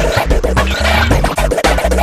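Funky electronic music track with a heavy bass line and turntable scratching over a quick beat.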